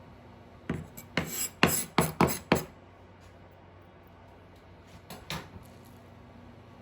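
Kitchenware clattering: about six sharp knocks in quick succession over two seconds, then two or three softer knocks a few seconds later.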